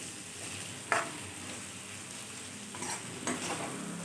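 Pointed gourd pieces sizzling in masala in a kadhai as a steel spoon stirs and tosses them, with a sharp knock of the spoon against the pan about a second in and lighter scrapes later.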